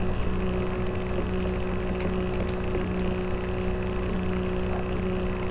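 A steady, even hum with a constant low tone and no change in level.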